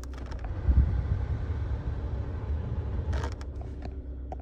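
Hyundai Avante's climate-control blower switched on with the dial: clicks of the dial, then a steady rush of air from the vents, strongest about a second in, over the low hum of the idling 1.6-litre petrol engine. More dial clicks a little after three seconds in.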